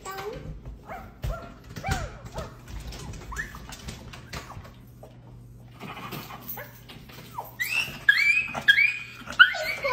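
Dog whining in a quick run of short, high-pitched cries during the last couple of seconds, after fainter scattered whimpers and light clicks. The dog is one its owner says has severe separation anxiety.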